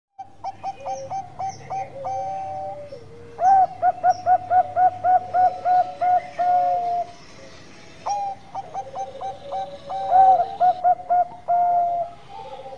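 Zebra dove (perkutut, Bangkok type) singing three phrases of quick staccato coos, about four notes a second. Each phrase ends in a longer held note and a lower coo that falls away.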